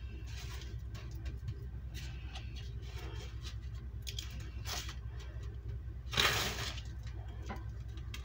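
Hands pressing and turning a salmon patty in a plate of dry shake-and-bake crumb coating: soft scraping and rustling in short bursts, the loudest about six seconds in, over a steady low hum.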